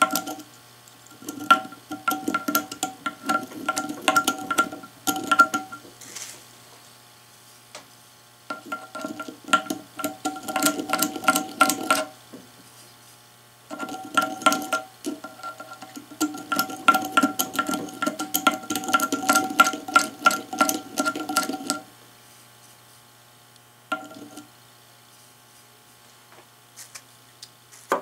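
A hand deburring tool's blade scrapes around the edges of drilled holes in a metal wheel rim, in three long spells of rapid chattering scrapes and a short last one. The scraping sets the rim ringing with a steady metallic tone.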